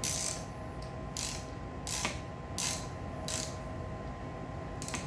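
Ratchet wrench tightening bolts on a minibike's front forks: about five short ratcheting strokes, roughly two-thirds of a second apart, stopping near the end.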